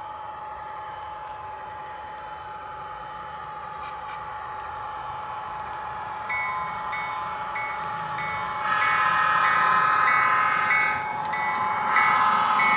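HO-scale model diesel locomotive sound decoder running and growing louder as it approaches. The locomotive bell starts ringing about halfway through, and the horn sounds one long blast, then starts a second near the end.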